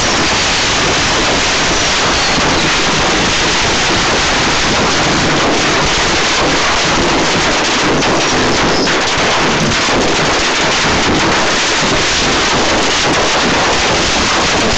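Fireworks going off indoors in a loud, dense, unbroken crackle.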